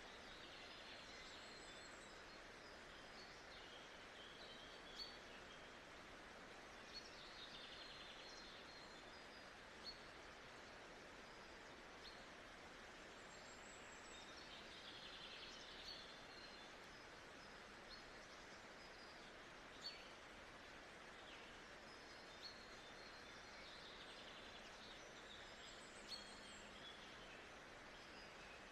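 Faint nature-sound ambience: a steady soft hiss with birds chirping in scattered bursts and a few short sharp clicks.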